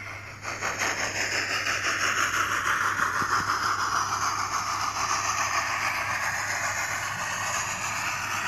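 A model steam locomotive's sound decoder, a LeoSoundlab T20 sound, plays through its small loudspeaker. There is a quick run of chuffs in the first second or so, then a steady steam hiss.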